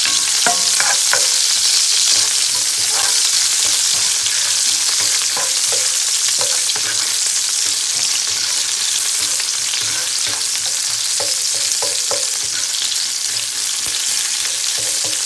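Lemongrass and garlic sizzling in hot oil in a cast-iron skillet, a steady high hiss, with scattered clicks and scrapes of metal tongs turning them in the pan.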